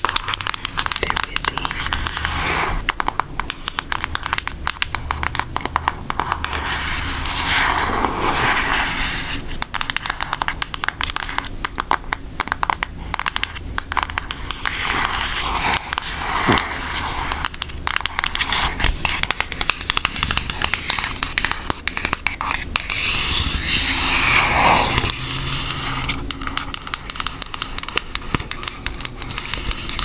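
Long acrylic fingernails tapping, scratching and tracing quickly over the cover and edges of an eyeshadow palette: a dense, unbroken run of fine clicks and scrapes, swelling into louder rustling twice.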